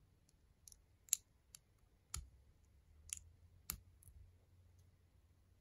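Small plastic LEGO pieces clicking together as they are pressed into place by hand: a scattered series of about seven short, sharp clicks, the loudest a little over a second in.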